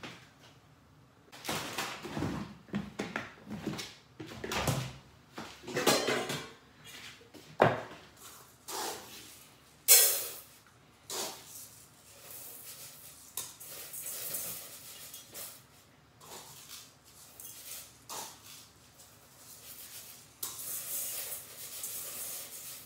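Irregular knocks, clatters and rustles of cookware and utensils being handled at a kitchen counter, with one sharp, loud clatter about ten seconds in and stretches of hiss in the second half.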